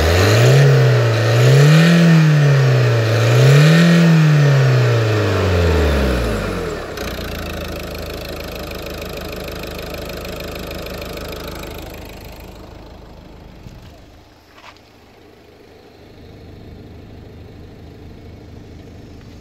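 Ford Focus 3 1.6 TDCi Duratorq four-cylinder turbodiesel engine revved twice, its pitch rising and falling each time, then settling back to a steady idle. The engine sound grows fainter about two-thirds of the way through.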